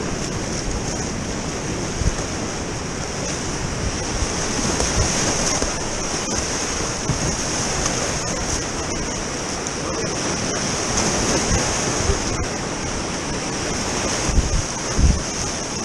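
Whitewater rapids rushing steadily around a kayak, heard close up from the boat. Low buffeting thumps on the microphone come in near the end.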